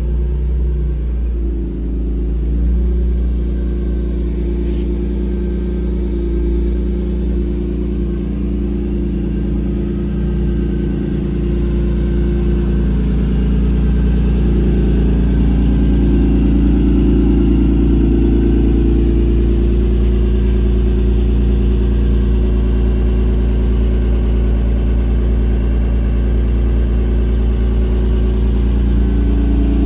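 1992 Acura NSX's mid-mounted 3.0-litre V6 idling steadily after a cold start. It gets a little louder from about halfway through.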